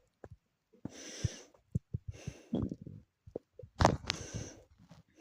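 Close-up body sounds: several breaths with short gurgling clicks from a growling stomach, the strongest clicks a little under a second before the end.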